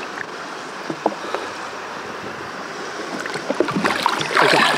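Water sloshing against the side of a small boat as a hand-held chafalote is let go in the river. A louder splash comes near the end as the fish kicks away.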